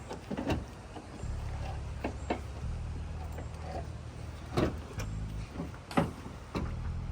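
A vehicle engine idling steadily, with a number of sharp clicks and knocks over it.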